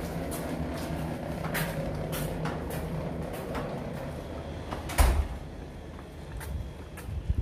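Footsteps on paving with a steady low rumble underneath that fades after about four seconds. A single loud thump comes about five seconds in.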